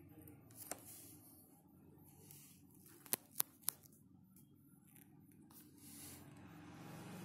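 Three sharp clicks in quick succession about three seconds in, over faint rustling and a low hum.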